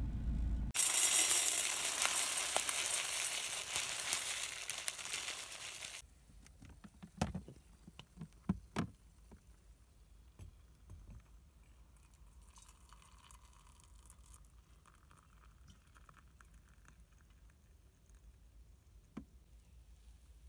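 Waeco electric kettle hissing as it heats water toward the boil, stopping sharply after about five seconds. A few light knocks and clicks follow, then only faint handling sounds.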